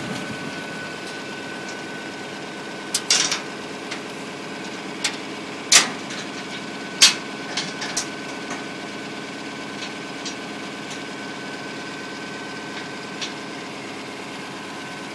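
Engine idling steadily with a thin whine, while a tow chain is being hooked up. A handful of sharp knocks come between about three and eight seconds in, the loudest near six and seven seconds.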